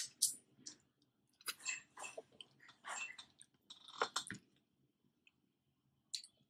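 Close-up mouth sounds of a person eating tilapia stewed in coconut milk by hand: wet smacking and chewing in short bursts over the first four seconds or so, then quiet apart from a single small click near the end.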